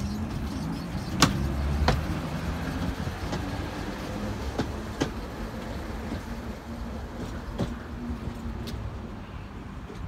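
A 71-619KT tram running past on its rails and pulling away: a steady rumble and hum with several sharp metallic clicks from the wheels on the track. It is loudest about a second in and fades slowly as the tram moves off.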